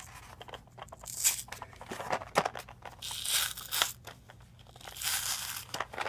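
A cardboard-backed plastic blister pack of trading cards being torn open by hand: tearing and crinkling in irregular bursts, with small clicks between them.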